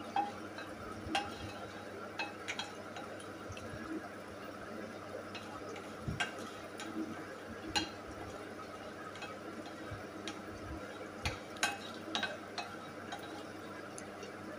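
Flat spatula stirring whole dried red chillies as they roast in a nonstick kadai, giving scattered light clicks and taps against the pan over a faint steady background.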